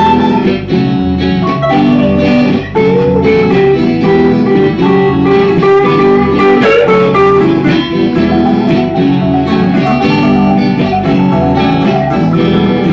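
Live band playing an instrumental passage: electric guitars lead over keyboard and bass, without vocals.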